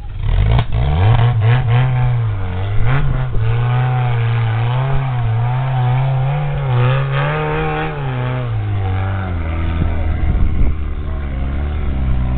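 Off-road 4x4 trial vehicle's engine revving, the revs rising and falling over and over as the driver works the throttle, then settling to a lower, steadier note about eight seconds in.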